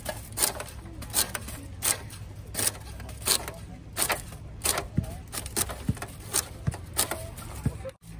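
Hand-lever sugarcane peeler shaving the rind off a cane stalk: a steel blade scrapes down the cane in short, sharp strokes about every 0.7 seconds.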